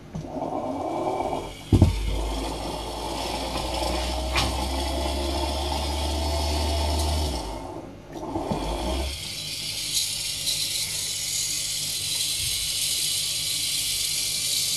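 Brushed universal motor from a 220 V blender, rewound for 12 V DC and fed from a bench power supply, spinning up with a rising whine and then running with a steady hissing whirr. It cuts out briefly about halfway through, then runs again. It is drawing about 2.5 A and running inefficiently because its rewound windings are unbalanced.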